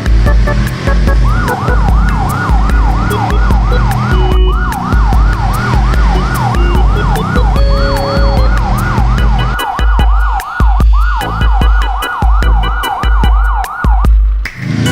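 Fast electronic yelp siren, wailing up and down about three times a second over a thumping bass beat. It breaks off briefly a few times and stops shortly before the end.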